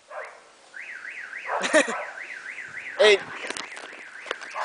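An electronic siren-type alarm tone warbling up and down about three times a second, starting just under a second in, with two short shouts over it.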